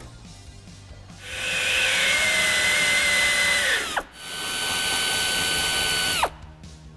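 Pneumatic air ratchet running twice, about three seconds and then two, a hissing whine that winds down each time the trigger is released. It is spinning rusted grille nuts off studs that are held with locking pliers.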